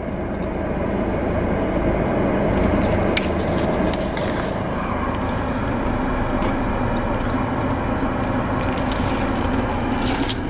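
Car cabin noise: a steady hum of engine and road noise heard from inside the car, with a few light clicks.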